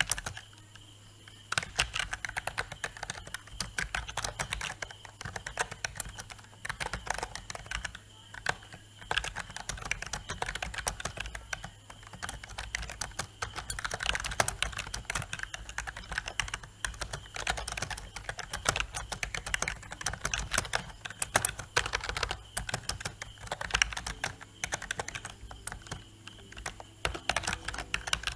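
Typing on a Marvo K629G membrane keyboard: fast, irregular soft key presses with no loud mechanical clicks, pausing briefly about a second in and a few times later.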